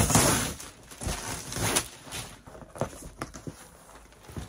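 Brown packing tape ripped off a large cardboard box in a noisy tearing burst, followed by a series of short knocks and scrapes of cardboard as the box is cut and pulled open.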